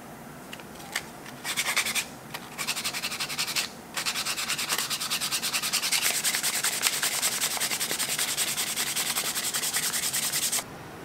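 Sandpaper rubbed by hand over a new wooden knife handle scale. A few short rubs come first, then quick, even back-and-forth strokes several times a second, which stop abruptly near the end.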